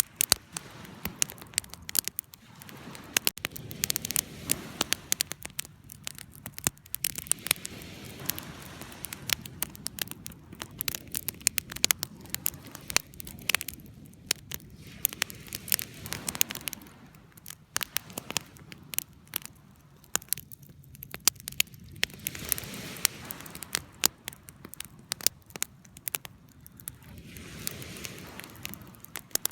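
Wood fire crackling, with many irregular sharp pops and snaps over a low rush of flame that swells and fades every few seconds.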